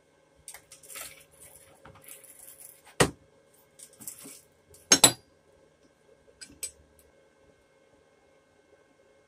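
Rustling of leather work gloves being handled, then small steel plates clanking against a steel workbench: one sharp clank about three seconds in and a louder double clank about five seconds in, with a few light clicks after. A faint steady hum runs underneath.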